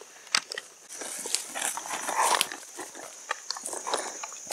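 Footsteps crunching irregularly through leaf litter and twigs on a woodland trail, over a steady high drone of insects.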